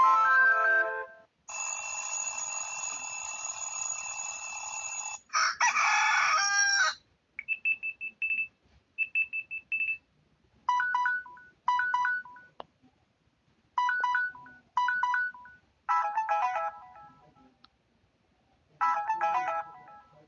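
Samsung Galaxy Pocket stock notification and alarm tones played one after another: a short melodic tune ending about a second in, a steady buzzing tone for several seconds, a second loud burst, two runs of short high beeps, then about six brief chimes with pauses between them.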